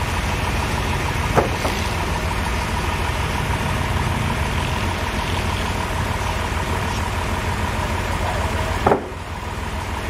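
Forklift engine idling steadily, with two sharp knocks, one about a second and a half in and one near the end.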